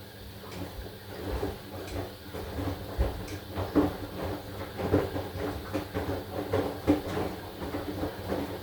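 AQUA AQW-DX12M drum washing machine's drum turning, the laundry tumbling inside with a run of irregular knocks and clatter over a steady low hum. The knocking starts about half a second in and stops near the end.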